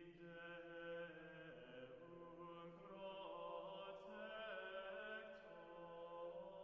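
Faint background Gregorian chant: voices singing slow, long-held notes that move gently in pitch.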